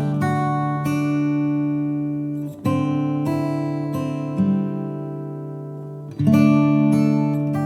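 Background music: an acoustic guitar strumming chords, each left to ring and fade before the next is struck every second or two.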